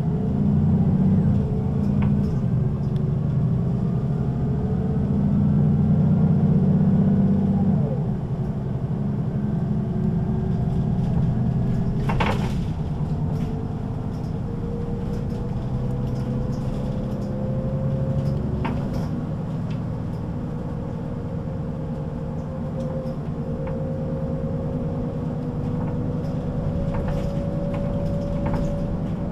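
Mercedes-Benz O 530 G Citaro articulated bus with its diesel engine running under load, a heavy low drone that drops suddenly about eight seconds in. After that a whine rises slowly in pitch as the bus gathers speed, with one sharp knock about twelve seconds in.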